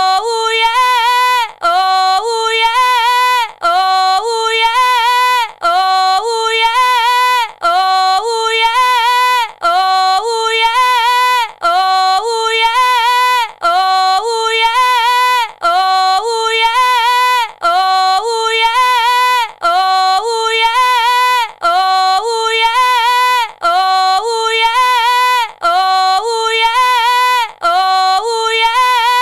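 A woman's drawn-out, seductive "oh yeah", looped over and over, about once every two seconds, with a short gap between repeats. Each one is high-pitched and sing-song, rising and falling.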